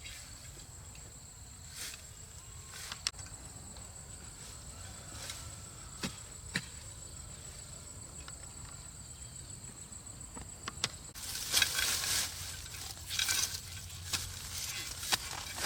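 Steady, high-pitched insect trilling, cricket-like, with a few sharp clicks. About eleven seconds in, a loud stretch of irregular rustling and scraping noises starts up.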